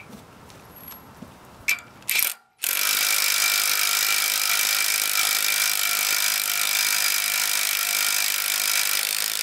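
A power tool running steadily for several seconds, starting about two and a half seconds in after a couple of faint clicks, as it drives one of the bolts fixing a solar-panel mounting frame to its concrete block.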